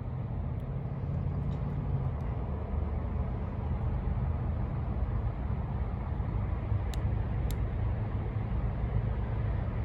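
CSX manifest freight train moving slowly: a steady low rumble of diesel locomotive engines and rolling cars, with two faint clicks about seven seconds in.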